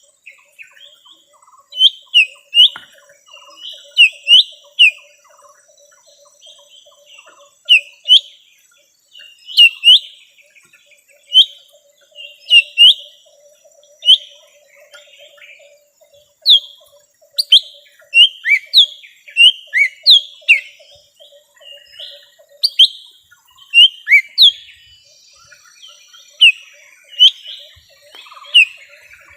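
Lesser green leafbird (cucak ijo mini) calling with a varied string of loud, sharp chirps, many in quick pairs or threes, as used in a lure call to draw wild birds. A faint rapid buzzing runs underneath and stops about three-quarters of the way through.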